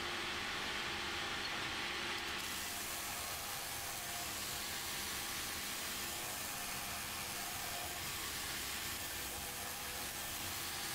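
A 6-inch belt grinder running with a worn belt. From about two and a half seconds in, a mild-steel bar is held against it, adding a steady grinding hiss as the top of the die is rounded.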